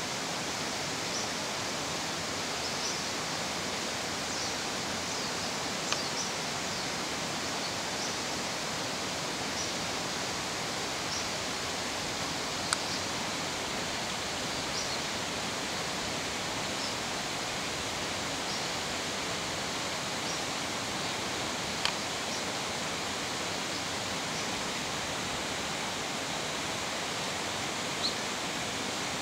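Steady rush of a mountain river flowing over rocks. Short high chirps recur every second or two above it, and a few sharp clicks stand out, about six, thirteen, twenty-two and twenty-eight seconds in.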